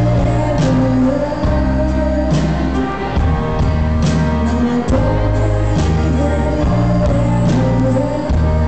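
A live band playing a rock song, recorded from the audience. Sustained heavy bass notes run under the band, with a cymbal crash about every second and a half.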